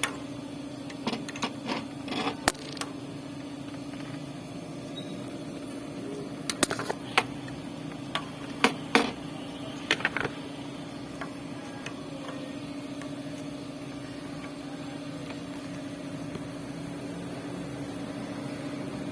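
Steady mechanical hum, with two clusters of sharp metallic clicks and clanks: one a second or two in, another from about seven to ten seconds in.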